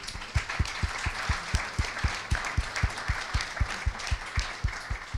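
Audience applauding, with steady claps close by, about four a second; the applause dies away near the end.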